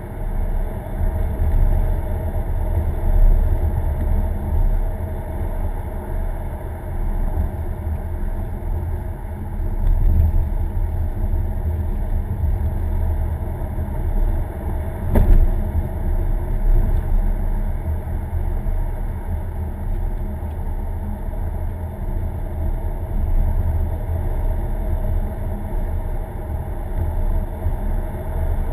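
Steady low rumble of a car driving, engine and road noise heard inside the cabin, swelling a little now and then. One sharp click about fifteen seconds in.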